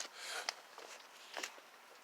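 Faint handling noises of parts being worked loose in a car door: a short scrape, a sharp click about half a second in, and another brief scrape about a second later.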